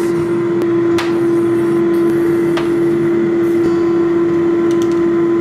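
A loud, steady machine hum that cuts off suddenly near the end, with a few light knocks as a glass jug and a plate are set down on a bamboo tray.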